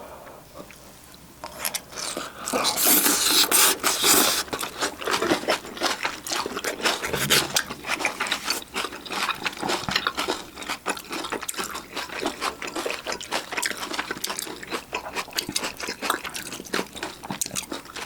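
Close-up eating sounds: rapid crunching and chewing of sauced chicken, starting about a second and a half in.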